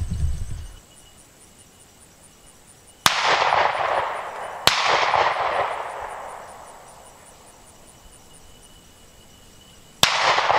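Three shotgun shots fired at a rabbit, the first two about a second and a half apart and the third some five seconds later, each echoing away over a couple of seconds.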